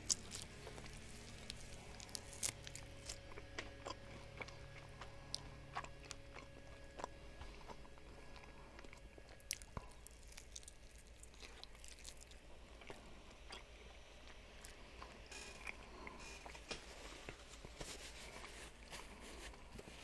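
A person biting and chewing a sauced chicken wing close to a headset microphone: scattered soft crunches and mouth clicks, with a few sharper crunches.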